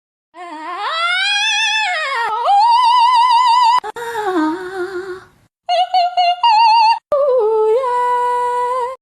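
High-pitched singing voice with vibrato: a glide up and down, then long held notes in several phrases, with short breaks about four and five and a half seconds in.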